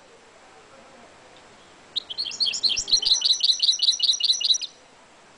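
Caged mule, a goldfinch × canary hybrid, singing one rapid phrase of quickly repeated high notes lasting about two and a half seconds, starting about two seconds in.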